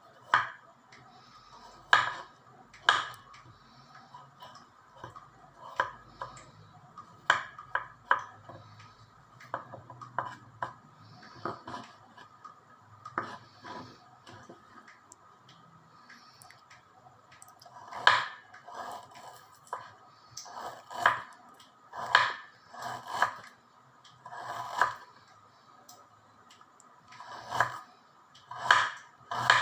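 Kitchen utensils knocking and clinking against a cutting board and dishes: irregular sharp knocks and clicks, busier and louder in the last third.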